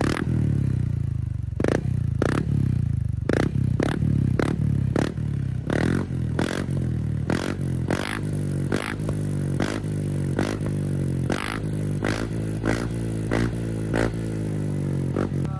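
Honda Click 160 scooter's single-cylinder engine running through an Apido V4 aftermarket exhaust, with the throttle blipped over and over above a steady low exhaust note. Each blip is a short, sharp crack. The exhaust tone is crisp, yet passes roadside noise checks.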